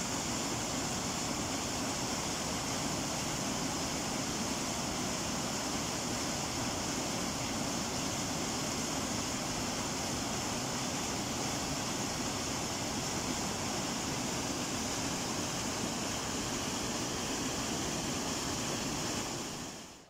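Small waterfall pouring over a rock ledge into a river, a steady loud rush of falling water that fades out sharply near the end.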